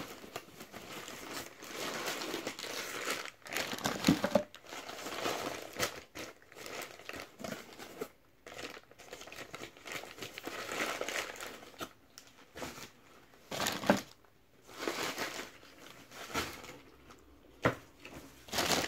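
Brown kraft paper packaging crinkling and rustling in the hands as a parcel is unpacked, in irregular bursts with short pauses.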